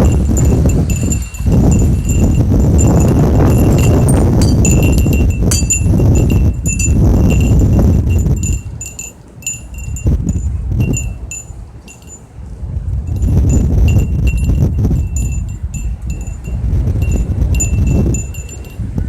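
Thunder rumbling in long rolls that fade about halfway through and build again, with wind chimes tinkling throughout.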